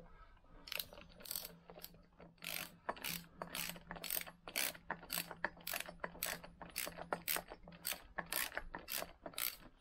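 Socket ratchet clicking in quick back-and-forth strokes, about two a second, as it runs the cylinder head nuts down onto a scooter engine's head.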